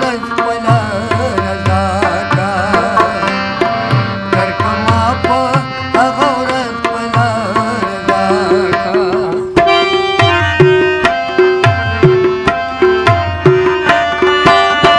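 Harmonium, rubab and tabla playing Pashto folk music, with a steady tabla beat throughout. A man's voice holds wavering sung notes over the first half; from about ten seconds in, the harmonium and plucked rubab carry the melody without the voice.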